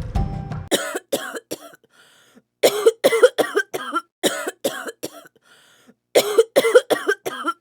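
A person coughing in three short fits of several sharp coughs each, with brief pauses between the fits.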